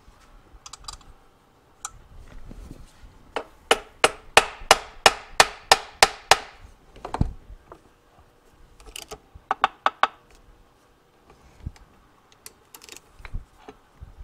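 Sharp metal clicks from a homemade steel case-splitter puller being handled and fitted on its threaded rods against a motorcycle engine case. The clicks come in a steady run of about ten, roughly three a second, then one more, and later a quicker run of about six.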